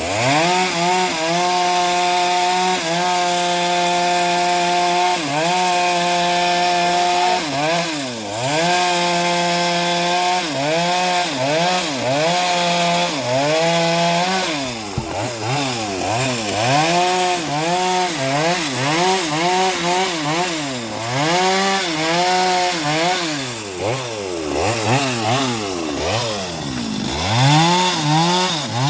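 Homemade bandsaw mill running and sawing timber, its drive's pitch dipping and recovering again and again as the cut loads it, more often in the second half.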